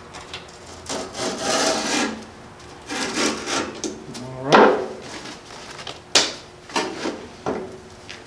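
Sheet of 3M wet-or-dry sandpaper being handled and scraped against a hard edge in several short rasping strokes, with a few sharp clicks in the second half.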